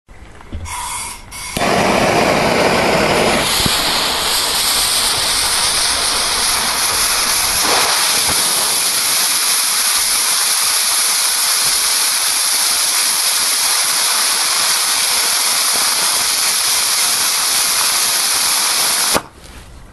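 15 mm rocket motor burning ball-milled black powder in a static test: a short fizzing ignition about a second in, then a loud, steady rushing hiss of the burn that stops suddenly with a sharp pop near the end at burnout.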